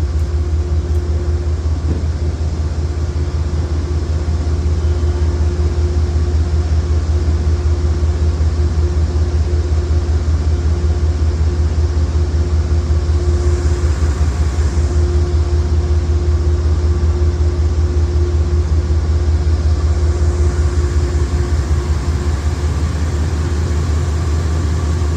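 Diesel locomotive idling: a loud, steady, deep rumble that pulses rapidly and evenly, with a steady higher hum above it.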